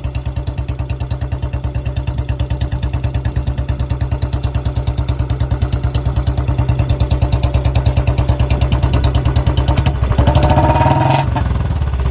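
Royal Enfield Bullet BS6 single-cylinder engine running steadily through a long C-bend exhaust, giving an even, rapid thump that grows a little louder. About ten seconds in, a brief higher tone sounds over it.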